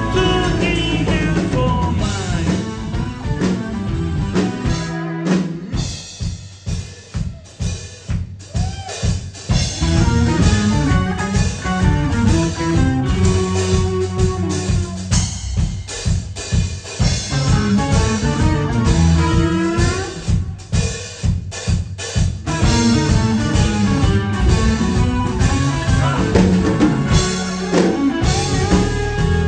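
Live rock band playing: electric guitar, bass guitar and drum kit. About six seconds in the band thins out to mostly drums for a few seconds, then the full band comes back in.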